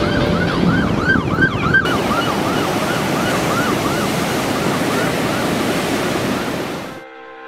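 Emergency siren on a beach patrol pickup truck, in a fast yelp of rising-and-falling sweeps about three a second, fading toward the end. Under it is a steady rush of wind and surf.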